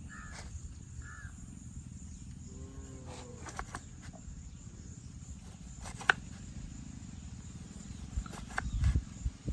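Outdoor ambience with a steady low rumble: a bird calls twice in the first second or so, and a few sharp clicks and knocks come later, the loudest about six seconds in.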